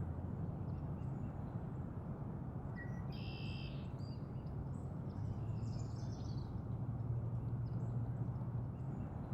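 An unidentified bird calls: a short thin note, then a call about half a second long with several stacked pitches, about three seconds in, followed by fainter higher chirps, over a steady low outdoor rumble.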